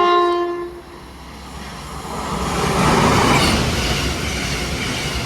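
Class 221 Super Voyager diesel train sounding its two-tone horn, high then low, the low note ending about a second in, then running through the station. The rush of the train builds to its loudest around three seconds in and holds.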